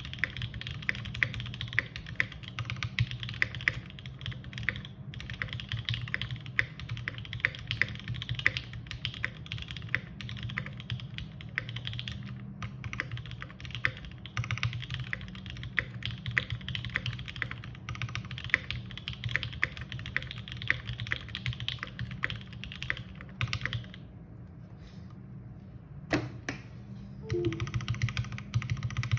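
Typing on a Smith & Rune Iron180 gasket-mount mechanical keyboard with lubed OPBlack switches, a forged carbon fibre plate and GMK keycaps: a fast, continuous stream of keystrokes. Near the end it stops for about two seconds, a single sharp click sounds, and then typing resumes.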